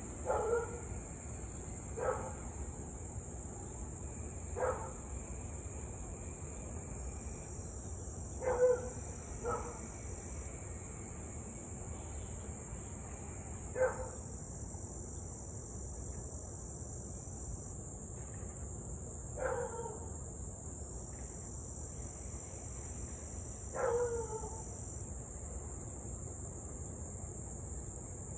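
A husky barking: short single barks, some dropping in pitch, about eight times at uneven gaps of one to six seconds. Under them runs a steady high chirring of insects.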